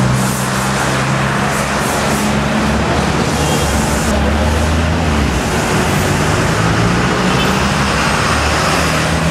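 Busy street traffic: cars and trucks driving through an intersection, their engines making a steady low hum over the road noise.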